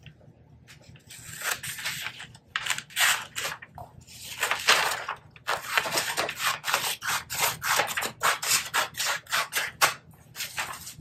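Scissors cutting through a sheet of butcher paper: a quick run of crisp snips with the paper crackling and rustling. The paper is handled for the first few seconds, and the steady cutting starts about four seconds in.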